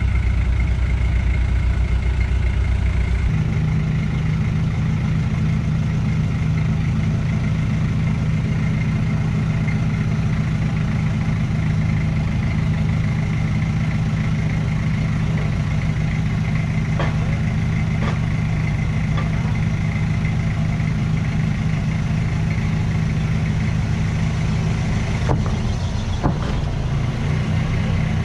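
Modified Toyota Hilux's 3.0 turbo-diesel engine idling steadily, its note settling a little lower about three seconds in, with a few light clicks in the second half.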